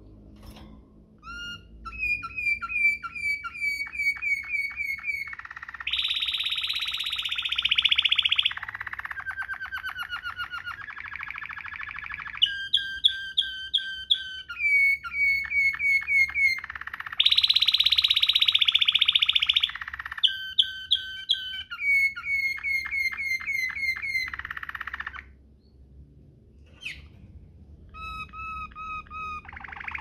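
Domestic canary singing a long rolling song in the Waterslager manner: a chain of tours, each a run of fast repeated high notes or a dense buzzing trill, switching to a new tour every second or two, with a short break about 25 seconds in.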